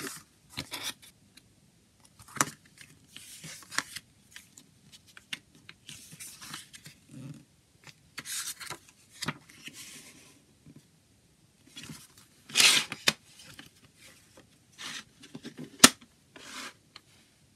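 A paper CD booklet being handled: pages turned and slid over a table in short scraping, rustling bursts. The loudest rustle comes about two-thirds of the way through, then a single sharp click from the plastic jewel case near the end.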